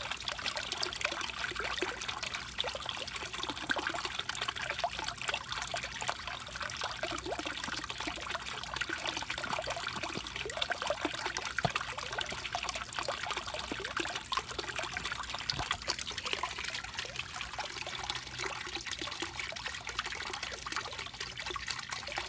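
Water steadily trickling and splashing into a fish pond, a water feature that keeps the water oxygenated.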